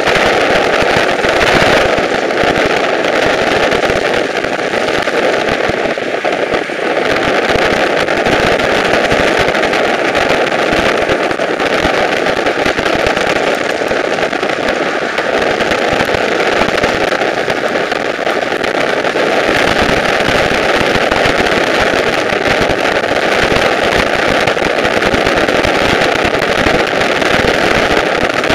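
Steady, loud running noise of a moving vehicle heard from inside it, a constant rush with fast, dense crackling and rattling.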